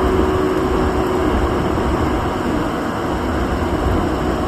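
Steady low rumble and hum of an EF81 electric locomotive and its train, with no horn and no sudden sounds.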